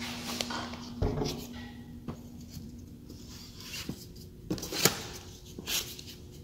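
A few scattered light knocks and scrapes over a steady low hum, with the loudest knocks coming in the second half.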